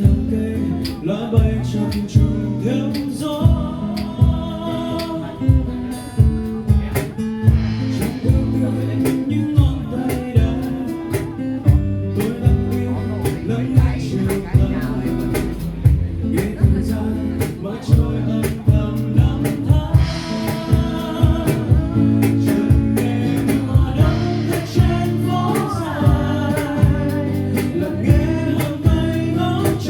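A song performed live by a singer to guitar accompaniment, the guitar keeping a steady strummed rhythm under the vocal lines.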